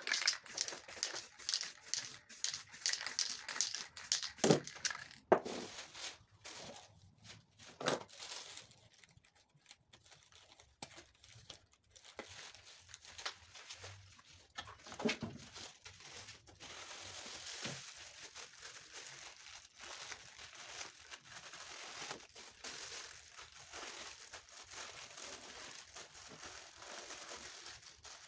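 Aerosol spray paint can hissing for the first few seconds, with a few knocks in between. Then a plastic bag crinkles steadily as it is crumpled and pressed onto the freshly painted board.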